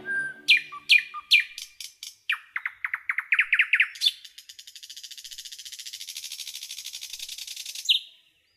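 Bird song: a few sharp, falling whistled notes, then a quickening run of falling notes, then a long fast trill that ends on one more falling note and cuts off.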